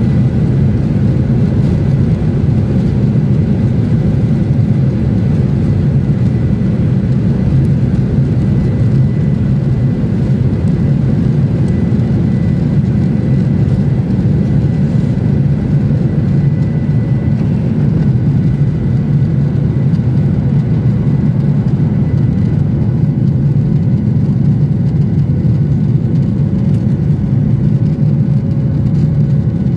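Jet airliner cabin noise during takeoff: a steady, loud engine rumble with a faint high whine over it.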